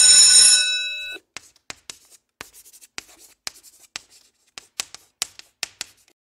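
A bright chime rings and fades out over the first second. Then comes chalk writing on a blackboard: a quick, irregular run of sharp taps and short scratches as words are written.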